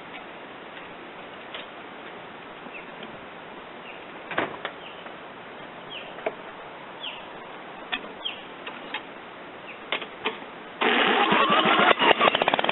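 Birds chirping and a few clicks and knocks over a quiet background. About eleven seconds in, a lawn mower engine, cranked with a power drill on its flywheel nut because the starter rip cord is broken, starts suddenly and runs loudly.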